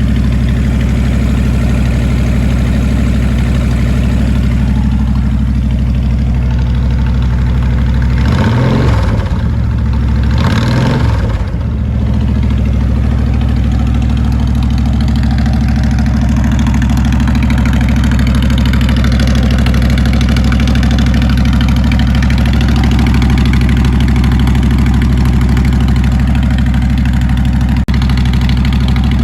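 2008 Honda VTX1300C V-twin through Vance & Hines exhaust, idling on choke as it warms up from cold. The throttle is blipped twice about eight to eleven seconds in, each rev rising and falling back to a steady idle.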